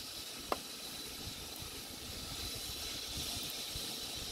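Outdoor ambience: a steady high hiss with a thin steady whine in it, gusty low rumble of wind on the microphone, and a single short click about half a second in.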